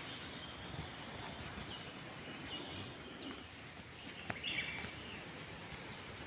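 Faint forest ambience, with a few short, high bird chirps scattered through it and a light click or two about four seconds in.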